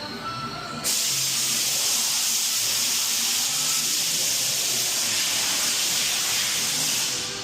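A loud, steady hiss of escaping air or spray starts abruptly about a second in and cuts off suddenly near the end.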